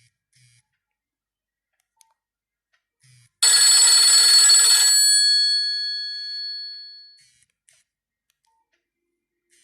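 One short bell-like ringtone chime from a Nokia 6500 Slide, striking suddenly about three and a half seconds in and ringing out over the next few seconds.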